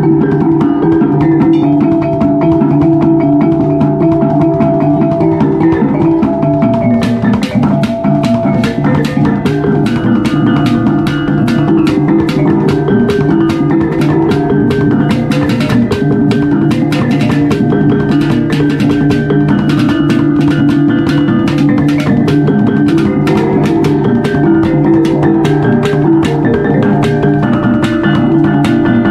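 Kulintang gong ensemble playing: a row of small pot gongs carries a ringing melody over the deeper sustained hum of large hanging gongs and hand-held gongs. About seven seconds in, a rapid run of sharp, dry strikes joins and keeps a fast beat.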